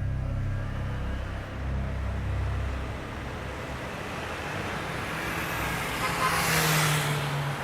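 Road traffic: vehicle noise swells as a car passes close, loudest about two-thirds of the way through, while low music fades out in the first few seconds.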